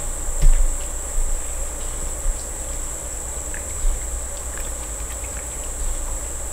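A cat crunching a freeze-dried mussel treat: a few scattered crunches and soft knocks over a steady high-pitched whine.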